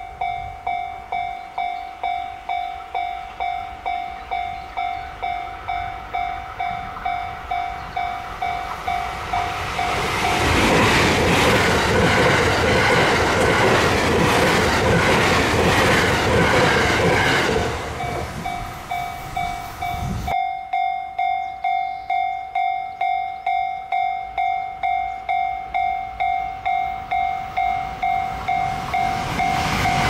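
Level-crossing warning bell ringing at a steady beat, about one and a half strikes a second. Between roughly 10 and 17 seconds a passing electric limited express train drowns it out with a loud rush of wheels and running gear, with clickety-clack over the rail joints. Then the bell is heard again.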